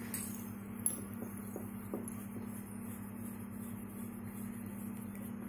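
A metal slotted spoon clinking and scraping lightly against an aluminium kadai while garlic, curry leaves and dried red chillies are stirred in a dry roast, a few faint clinks over a steady low hum.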